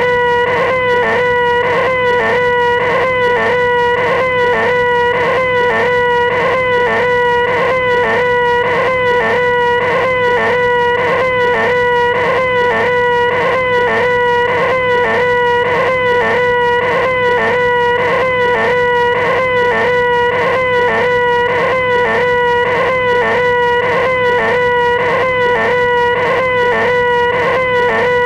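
A man's voice holding a high, nasal 'eeeeh' whine, the 'most annoying sound in the world', repeated over and over in short, identical, evenly spaced pulses without a break.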